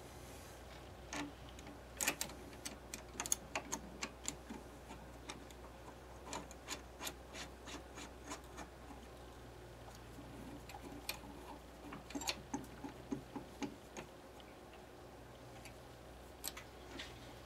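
Faint, irregular metal clicks and ticks from a hex key working screws in the aluminium end plate of a bench mill's Y-axis slide, coming in runs of several a second with short pauses between.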